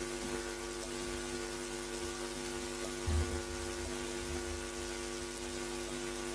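Steady electrical mains hum and buzz from a live stage sound system, with a single low thump about three seconds in.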